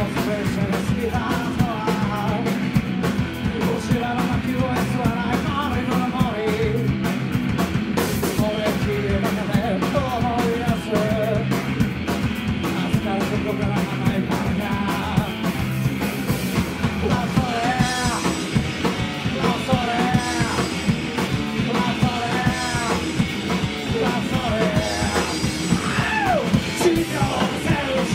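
Rock band playing live: drum kit, bass and electric guitar, with a singer's voice over them.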